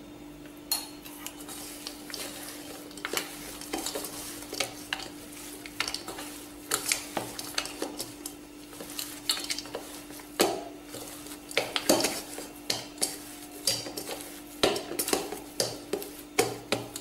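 Hands pressing and kneading a sticky date-and-nut mixture in a stainless steel bowl, with irregular knocks and scrapes of fingers and mixture against the metal.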